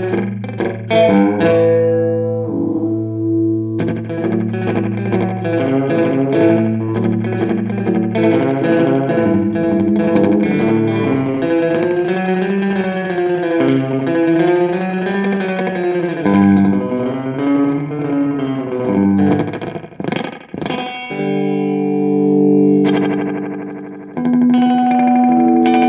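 Electric guitar played through an Electro-Harmonix Polychorus pedal: picked notes, then held chords whose pitch wobbles up and down in a slow, regular sweep, about one sweep every two seconds, then long held notes near the end.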